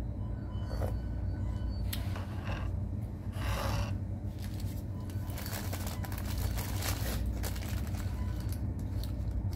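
Paper food bag and sandwich wrapper rustling and crinkling as they are handled and opened, in irregular bursts starting about two seconds in, over a steady low hum.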